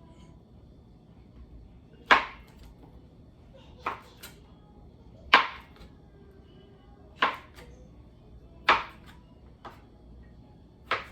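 Kitchen knife chopping through food onto a cutting board: about seven sharp strokes, unevenly spaced about a second or two apart, some louder than others.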